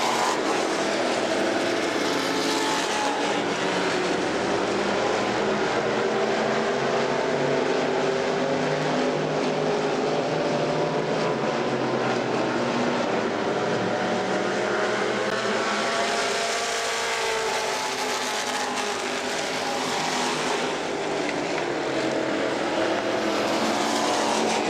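Several dirt-track stock cars racing under power, their engines blending into a steady, loud drone. The engine notes waver up and down as the cars go through the turns, and the sound eases slightly about two-thirds of the way through.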